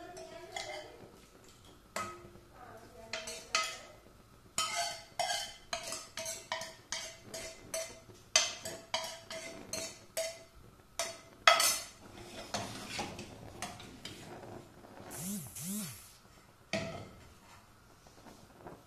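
A spoon scraping and tapping a frying pan to knock tempered mixture into a stainless steel soup pot: a run of sharp metallic taps with a ringing note, about two a second through the middle. There is one louder clank near the end.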